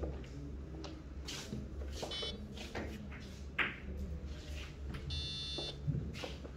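Billiard balls on a five-pin carom table knocking together as they roll after a shot: a run of sharp clicks, the loudest about three and a half seconds in. A short electronic beep sounds about two seconds in and a longer one about five seconds in, over a low steady hum.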